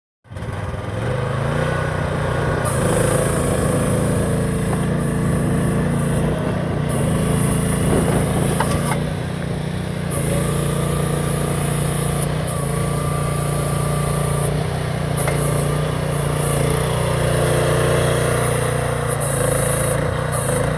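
AGT H12 1.2-ton mini excavator's small engine running steadily, with a high hiss that comes and goes every few seconds and a couple of light clicks about eight and nine seconds in.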